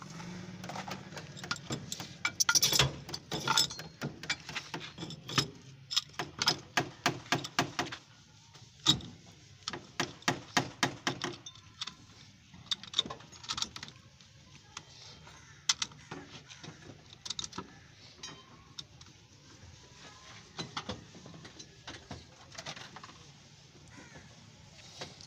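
Sharp metal clanks and taps on steel brake and hub parts, in quick runs of about three or four a second for the first ten seconds or so, then sparser clinks of tools and parts.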